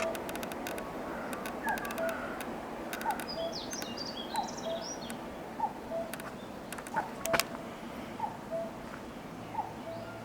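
Common cuckoo calling its two-note cuck-oo again and again, about once every second and a quarter, over a steady background hiss. A few sharp clicks and brief high chirps from another bird come in the middle.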